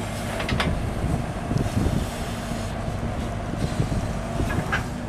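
Diesel engine of a Sumitomo 265 crawler excavator running with a steady drone, with irregular low rumbles and knocks as the machine works and moves. Wind buffets the microphone.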